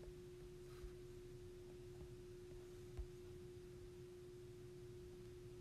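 Near silence: a faint steady pure tone over low background hiss, with one soft click about three seconds in.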